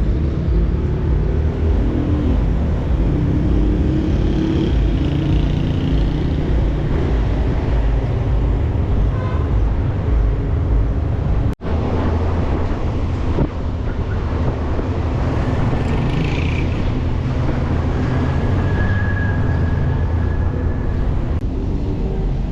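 Car driving: a steady rumble of engine and road noise, which breaks off for an instant about halfway through.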